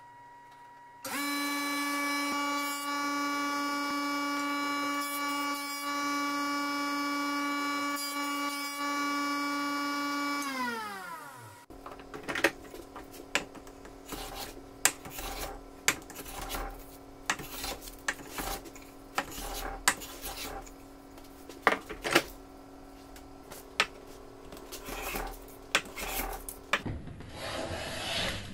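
Thickness planer starting up about a second in, running with a steady whine for about nine seconds, then spinning down with falling pitch. After that comes hand-tool work on a wooden plane body clamped in a vise: sharp scraping strokes roughly once a second over a faint steady hum.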